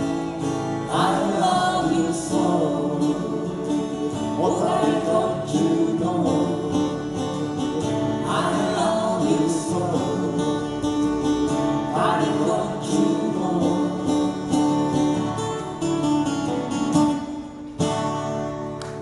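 Live acoustic guitar band playing the closing bars of an oldies pop song, with sung phrases over strummed chords. The music stops about a second before the end.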